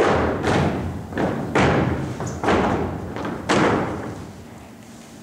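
Rifle drill by a squad of cadets on a stage: about six sharp thuds and slaps at irregular intervals over the first three and a half seconds, each ringing briefly in the hall.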